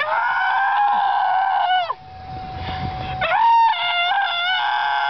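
Girls screaming in play: two long, high-pitched shrieks held near one pitch. The first breaks off with a falling slide just under two seconds in; the second starts about a second later and is held, with a second voice joining it.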